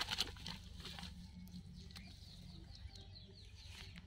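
A large carp being shifted on a cast net in the grass, with a few short rustles and knocks in the first half second, then faint high bird chirps over a low background hum.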